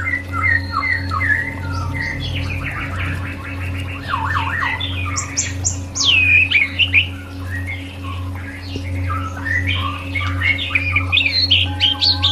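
White-rumped shama (murai batu) singing a varied song of quick whistled phrases, sharp falling sweeps and rapid repeated trill notes, over a steady low hum.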